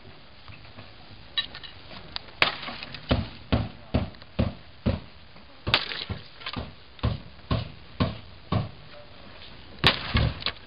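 Sledgehammer blows on the old weathered wooden boards of a shed, with the boards knocking and cracking: a run of sharp wooden impacts about two a second, the hardest hits about 2.5, 6 and 10 seconds in.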